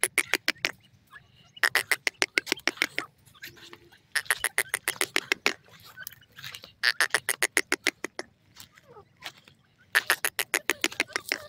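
Grey francolins calling: bursts of rapid, sharp, repeated notes, about ten a second. Each burst lasts a second or so and they come every two to three seconds.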